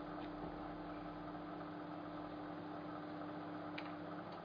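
Microwave oven running with a steady electrical hum. There is a faint click about four seconds in, and the hum's held tone cuts out just after it.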